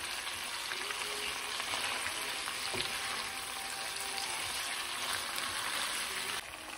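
Beef cubes and vegetables sizzling in a hot frying pan, stirred with a spoon: a steady crackling sizzle that drops off shortly before the end.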